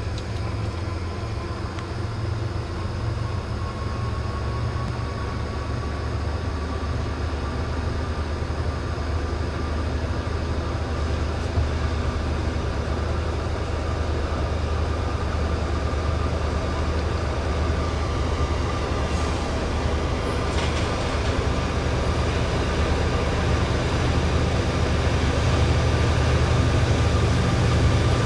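Approaching CSX freight train's GE wide-cab diesel locomotive: a steady low rumble with a faint thin whine, slowly growing louder as the train comes closer.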